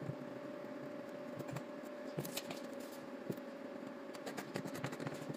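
Quiet shop room tone: a steady faint hum with scattered light clicks and taps, as of small handling noises.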